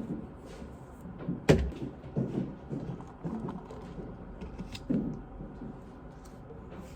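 A few knocks and clunks of things being handled, the sharpest and loudest about a second and a half in, with softer ones around two, three and five seconds in.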